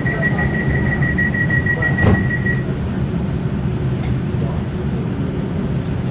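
A train's door-closing warning buzzer beeps rapidly at a high pitch and cuts off about two and a half seconds in. Just before it stops there is a single thud, over the steady low rumble of the electric multiple-unit train.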